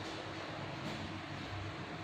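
Steady low background noise: room tone with faint microphone hiss and hum.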